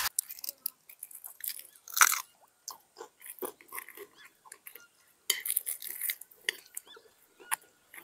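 Someone chewing and crunching a meal of fried fish with crunchy cassava flour close to the microphone, in irregular crackly bites, loudest about two seconds in and again around five to six seconds.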